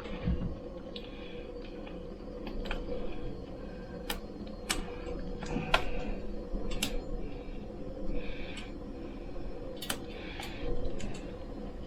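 Kitchen clatter: a pan and other cooking things being handled, with a string of sharp, irregular clinks and knocks and some rustling, over a steady hum.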